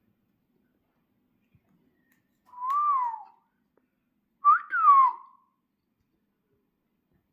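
A parrot whistling twice: a clear whistle that rises a little and then falls, and a second, louder whistle in two quick falling parts about two seconds later.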